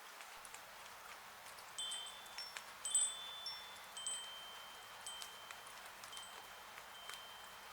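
Chimes ringing: a cluster of high, clear strikes starting about two seconds in, one tone ringing on for several seconds. Underneath is the steady patter of rain on a porch roof.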